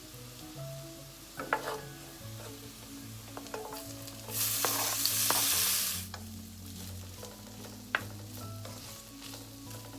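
Silverbeet being stir-fried in a pan: scattered clinks and scrapes of a utensil, with a loud burst of sizzling for under two seconds about four seconds in.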